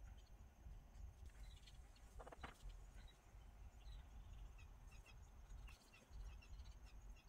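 Near silence: faint room tone with a few faint, short bird chirps in the background and a brief faint rustle about two and a half seconds in.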